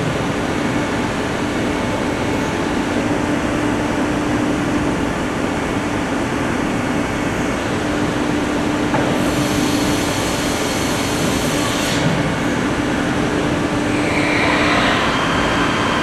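Soraluce SP 8000 CNC bed-type milling and boring centre running: a steady mechanical noise with a constant hum. A high hiss joins for about three seconds in the middle, and near the end the pitch shifts.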